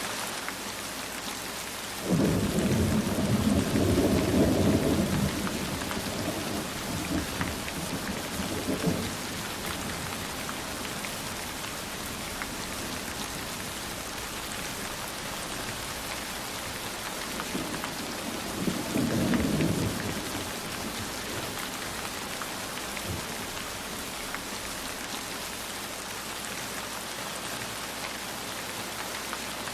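Steady heavy rain with thunder: a sudden loud rumble about two seconds in that rolls on and fades over several seconds, and a second, shorter rumble past the middle.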